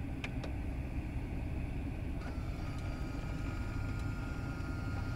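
Truck engine idling, heard inside the cab, with two small clicks as the car stereo's knob is pressed to reboot it. From about two seconds in, a faint thin whine comes from the head unit's motorized flip-out screen as it starts to slide out.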